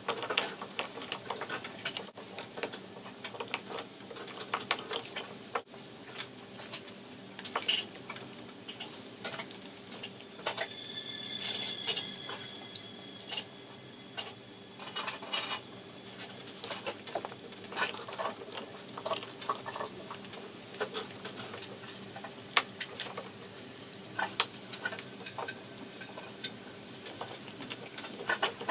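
Greyhound gnawing a raw meaty bone, with irregular cracks and clicks of teeth on bone throughout.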